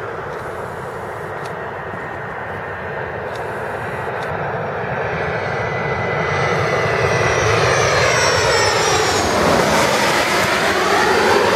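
Business jet's turbofan engines, a steady jet noise that swells as the aircraft passes close by. A high whine falls in pitch as it goes past.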